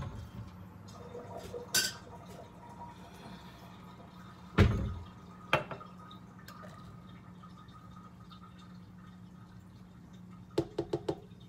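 A thick blueberry banana milkshake is poured from a blender cup into a tall glass. There is a loud knock about four and a half seconds in, as a glass is set down on the granite counter, and a quick run of taps near the end.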